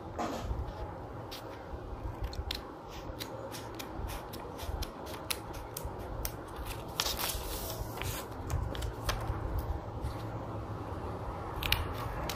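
Scissors cutting folded craft paper: a run of short snips and clicks at an uneven pace.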